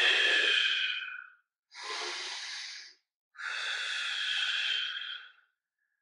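A man breathing hard under the effort of a Pilates arm-and-opposite-leg lift in box position: three long breaths, the first the loudest.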